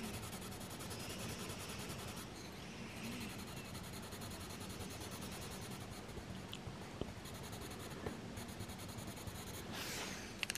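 Caran d'Ache Luminance coloured pencil steadily scratching and rubbing across paper as an area is coloured in, with a few faint ticks.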